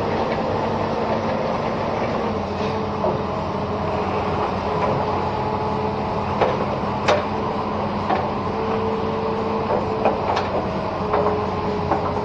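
Amphibious excavator's diesel engine running steadily. Scattered sharp clicks and knocks sound over it, and a thin whine comes and goes.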